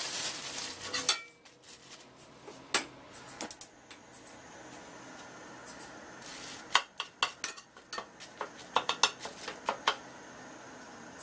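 Metal clinks and knocks of a skillet being handled: a rush of noise in the first second, a few scattered knocks, then a quick run of clinks between about seven and ten seconds in, some of them ringing briefly.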